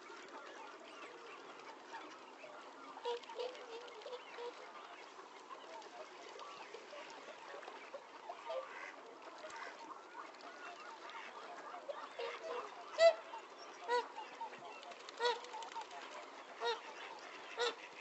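A large flock of wildfowl, swans and ducks, calling on open floodwater: a continuous babble of many overlapping calls, with louder single calls standing out every second or so over the last few seconds.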